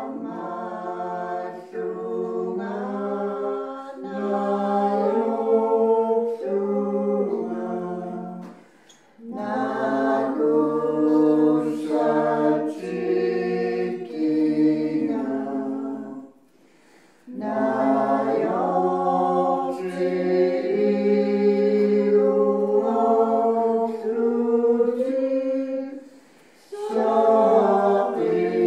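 Unaccompanied choir singing sustained chords in several-voice harmony. The singing comes in long phrases, with short breaks about 9, 17 and 26 seconds in.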